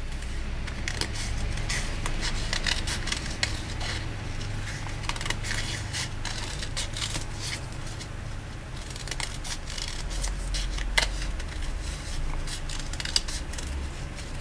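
Scissors snipping through a stapled stack of several sheets of paper, a quick series of short cuts with the blades' clicks following a leaf outline.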